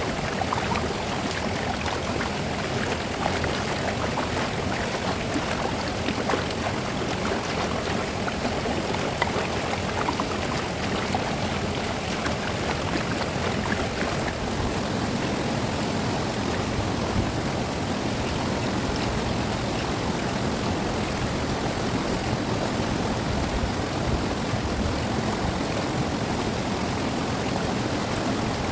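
Fast-flowing river rushing steadily, with a few faint light clicks in the first half.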